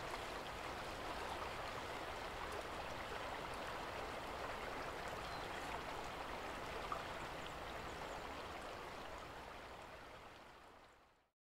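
A river flowing, a steady rushing of water that fades out over the last few seconds to silence.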